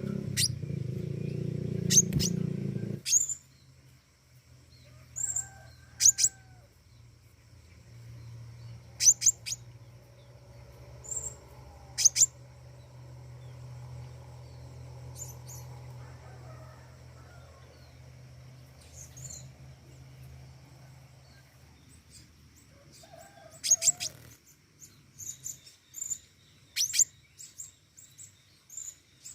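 Pentis raja bird chirping: short, sharp, very high notes, one or two at a time with pauses of a few seconds, coming faster near the end. A low steady hum runs under most of it, and a louder low rumble fills the first three seconds.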